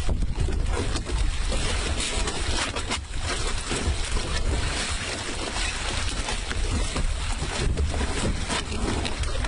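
Wind buffeting the microphone over water moving against a small open boat, a steady low noise that never breaks.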